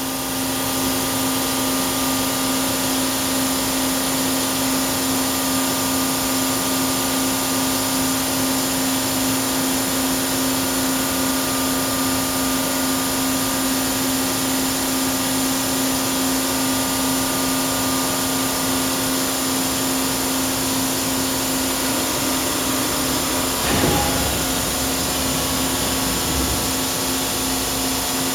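Hitachi Seiki CA23II HiCELL CNC lathe under power, running with a steady machine hum and a strong steady low tone. A brief knock with a short low rumble comes about 24 seconds in.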